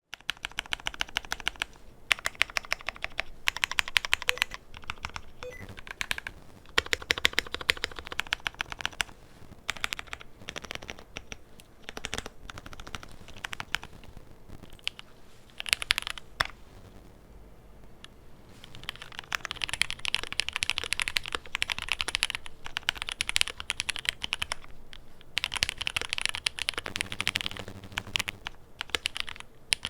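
Typing on a QK100 custom mechanical keyboard with lubed Cherry MX Black linear switches on an FR4 plate, soldered to a non-flex PCB: fast runs of key strokes in bursts, broken by short pauses.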